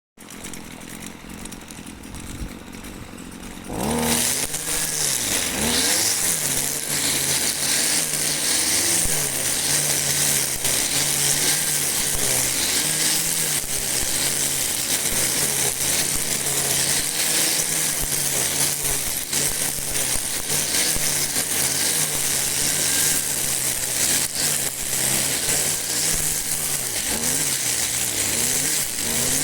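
Two-stroke petrol string trimmer. It runs quietly for the first few seconds, then about four seconds in the engine revs up sharply and holds at high speed for cutting grass, its pitch wavering.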